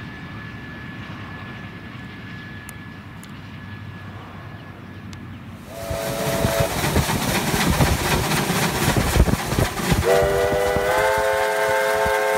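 A steam train runs by at a distance with a low rumble. About six seconds in, a steam locomotive close by gives a short whistle blast and works hard, its exhaust beating loudly. From about ten seconds in, it sounds a long steam whistle of several notes that steps up in pitch once.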